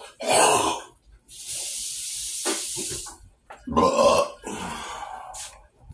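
A man burping loudly, once near the start and again about four seconds in, with a kitchen sink tap running for about two seconds in between.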